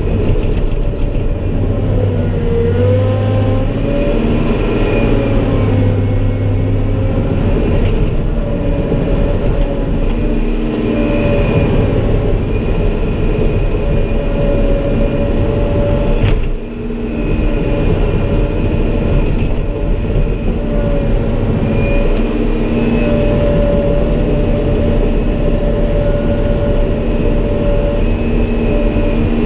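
Caterpillar 963 track loader's diesel engine running hard while the loader works a bucket of dirt, heard from inside the cab. A whine in it rises and falls as the load changes, and the sound dips briefly a little past halfway.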